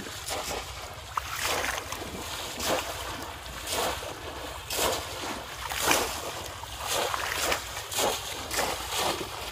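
Water splashing as bamboo polo fish traps are plunged repeatedly into shallow water by people wading, roughly one splash a second, over a steady low rumble.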